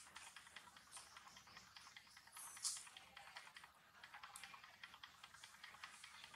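A young monkey chewing soft, juicy yellow fruit: faint wet smacking and clicking of mouth and fruit, several small clicks a second. A brief high chirp about two and a half seconds in.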